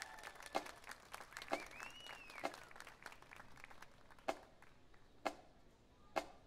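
Audience applause thinning out, with a rising-and-falling whistle early on and a sharp click about once a second.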